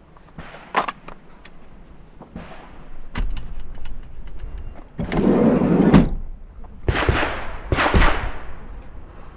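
A series of sharp clicks and short metallic clatters as a competition shotgun is unloaded and its action cycled after the course of fire.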